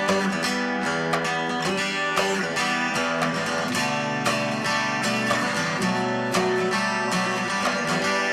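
Background music: an instrumental passage of strummed acoustic guitar with a steady beat.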